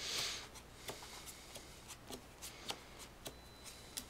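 Sleeved Yu-Gi-Oh cards being dealt one at a time onto separate piles on a cloth playmat, as in a pile shuffle. A brief sliding brush of cards at the start, then soft, irregular taps as each card lands.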